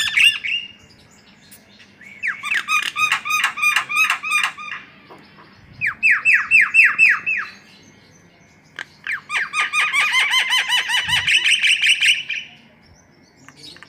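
Javan myna (jalak kebo) song: three bursts of fast, harsh, repeated notes, each note falling in pitch, about five a second, with short pauses between the bursts.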